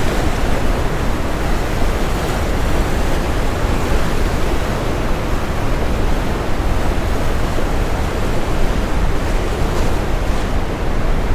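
Steady brown noise, heavy in the low end, layered with the wash of ocean surf.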